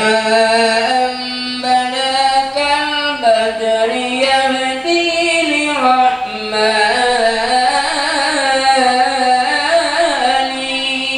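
A voice singing an Arabic devotional marhaban chant in long held notes, each drawn out with wavering, ornamented pitch.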